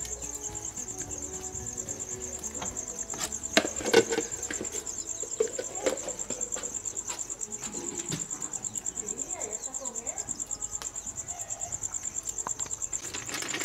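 An insect chirping in a fast, steady, high-pitched pulse. A couple of sharp knocks stand out about four seconds in, with a fainter one a couple of seconds later.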